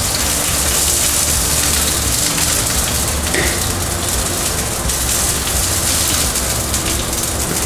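Sesame-crusted yellowtail frying in hot sesame and avocado oil in a frying pan, a steady sizzle as the pieces are seared and turned with tongs.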